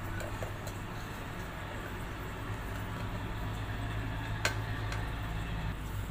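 Steady low hum with faint hiss while red jelly is stirred with a metal spoon, and a single sharp click of the spoon against the vessel about four and a half seconds in.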